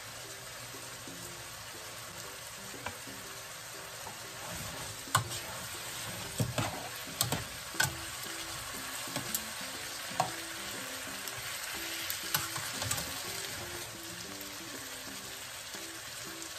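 Cubes of pork belly sizzling in a frying pan while a utensil stirs them. Several sharp clicks and scrapes of the utensil against the pan come between about five and thirteen seconds in.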